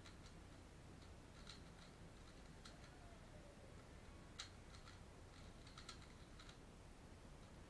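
Faint, irregular clicking and clacking of a Valk 3 Power M magnetic 3x3 speedcube as its layers are turned quickly during a timed solve.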